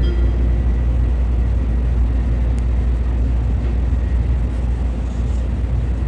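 Steady low rumble of a Tokaido Shinkansen N700A train running, heard inside the passenger cabin. The last notes of the on-board chime die away right at the start.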